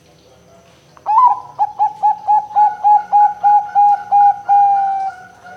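Perkutut (zebra dove), Bangkok type, cooing: a quick run of about a dozen short, evenly spaced coos, roughly four a second, ending in one longer drawn-out coo that fades away.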